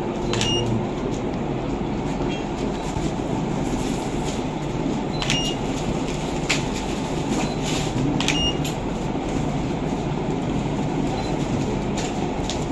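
Steady low rumbling background noise, with several sharp clicks scattered through it, some with a brief ringing tone.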